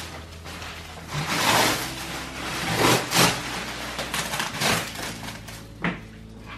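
Plastic wrapping rustling and crinkling in several swells as it is pulled and torn off a roll-packed compressed foam mattress, with a sharper crackle near the end.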